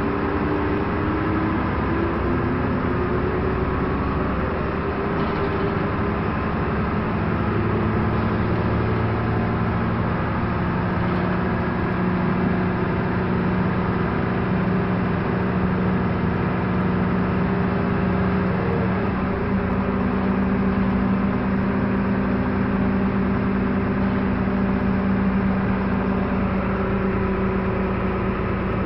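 Jelcz 120M city bus's diesel engine, heard inside the passenger cabin while driving. It rises in pitch over the first few seconds as the bus picks up speed, runs steadily, then its note drops suddenly about two-thirds of the way through.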